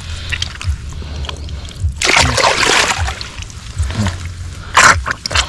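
Canal water splashing and sloshing as hands and bodies work in it while groping in a burrow for fish. A longer splash comes about two seconds in, and a short sharp one near the end.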